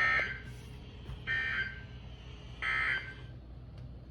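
NOAA Weather Radio EAS end-of-message signal: three short bursts of SAME digital data tones, a buzzy two-tone warble, about 1.3 seconds apart. The bursts sound over a low steady hum from the radio.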